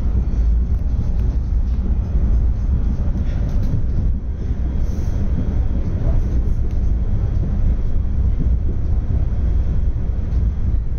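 A MAN/AEG GT6M articulated tram running along its track, heard from inside the passenger cabin: a steady low rumble of the running gear on the rails.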